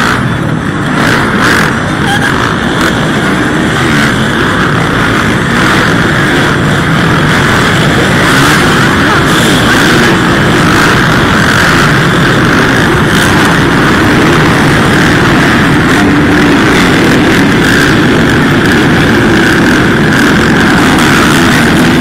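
Several small two-stroke youth motocross bikes racing together, their engines buzzing at high revs in a continuous blended din that grows louder over the first few seconds and then holds steady.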